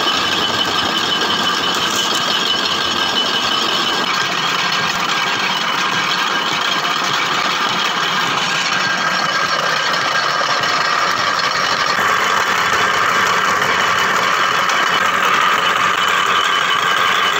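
Powered sugarcane roller crusher running steadily as cane is fed through: a loud, continuous mechanical drone from its drive and turning iron gears and rollers.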